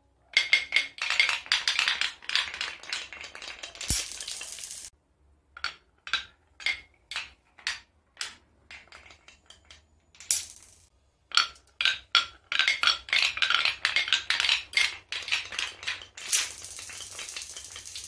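Glass marbles rolling and clattering down a wooden marble run, clicking against the wooden channels and blocks, in two dense stretches of rattling with single clicks between. Wooden dominoes get knocked over at the bottom. Near the end the clicks give way to a steady rolling sound as the marbles run across the tiled floor.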